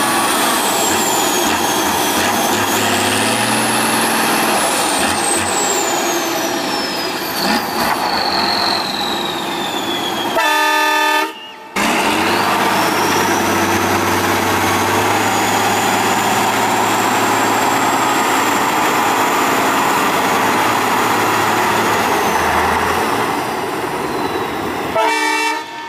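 Tatra 815 6x6 trial truck's diesel engine working hard as the truck crawls through deep mud, with a high whine that rises and falls. A brief horn blast sounds about ten seconds in and again near the end.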